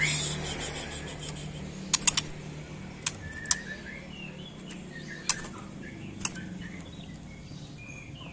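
Juvenile white-rumped shama moving about its cage: a sharp tap with a quick flutter of wings at the start, then scattered sharp taps as it hops and lands on the perch and bars, with a few faint short chirps. A steady low hum runs underneath.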